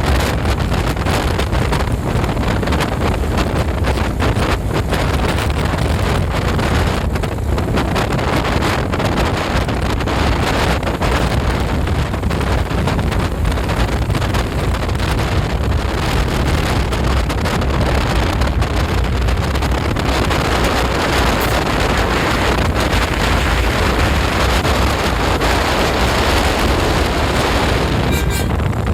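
Steady low rumble of a large vehicle engine, mixed with wind noise on the microphone, growing fuller and brighter about two-thirds of the way through. No horn is sounded.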